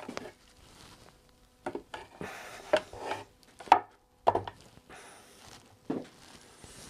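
Handling noise from a wooden rocking chair with a concrete block weighting its seat and a bar clamp on it: a handful of sharp knocks, the loudest just under four seconds in, between short stretches of scraping and rubbing.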